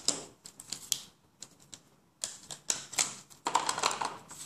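Plastic Faber-Castell Connector felt-tip pens clicking and clattering against each other as a handful is picked up and handled, in irregular runs of sharp clicks that are busiest in the second half.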